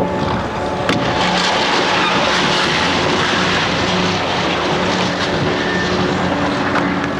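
Diesel engine of a wrecking-ball crane running steadily, with a broad rushing noise over it and one sharp click about a second in.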